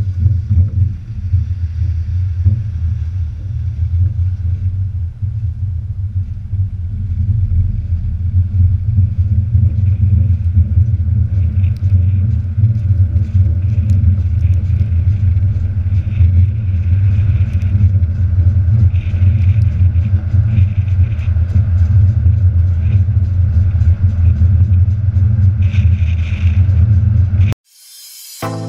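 Steady low rumble of a heavy-haul truck trailer rolling along a road: tyre and wind noise from a camera mounted low beside the trailer's wheels. About a second before the end it cuts off abruptly and music begins.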